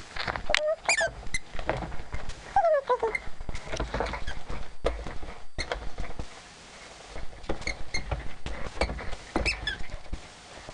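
Border collie rummaging in a Christmas stocking of toys: rustling and clattering with short high squeaks scattered through, quieter for a moment about six seconds in.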